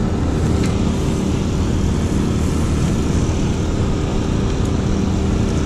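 Generator engine running steadily, a constant low drone.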